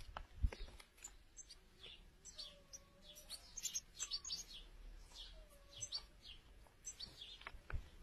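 European goldfinch twittering: clusters of quick, high chirps in two bouts, with a couple of sharp clicks near the start.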